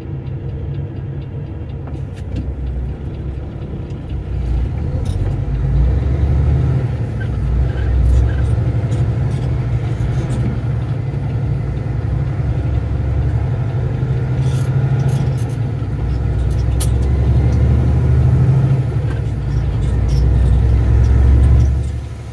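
Diesel engine of a semi-truck running, heard from inside the cab, with road and tyre noise as the rig pulls away from a stop and drives on. The rumble grows louder about five seconds in as the truck gets up to speed.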